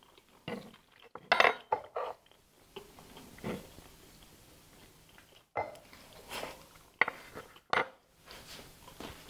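Metal forks and a spoon clinking and scraping against a wooden serving board and the food on it, in scattered short clicks. The loudest comes about a second and a half in.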